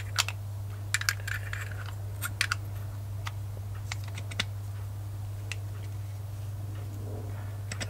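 Light clicks and clinks of small metal engine parts and tools being handled, scattered and irregular, mostly in the first half, over a steady low hum.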